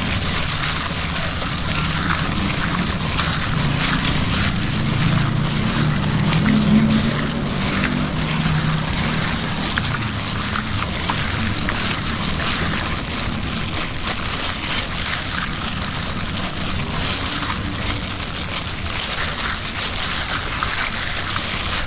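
Wet squelching and sloshing as a hand in a plastic bag kneads raw frog pieces in a sticky marinade in a bowl, with small crackles from the plastic and the wet mix. A low background hum swells and fades in the first half.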